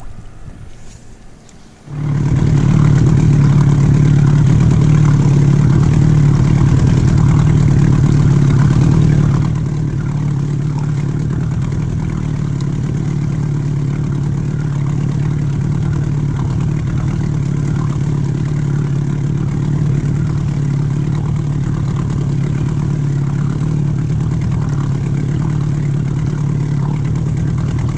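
Outboard motor running steadily, driving an inflatable boat at trolling speed. It cuts in abruptly about two seconds in, and settles a little quieter about nine seconds in.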